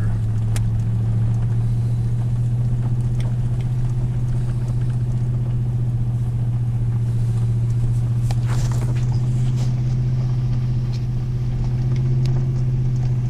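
Vehicle driving slowly on a dirt forest road: a steady low engine and road drone, with a few scattered clicks and knocks.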